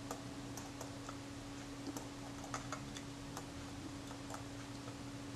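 Faint, irregular light clicks and taps from a toothpick and fingertips working adhesive under the leather covering of a camera body, over a steady low hum.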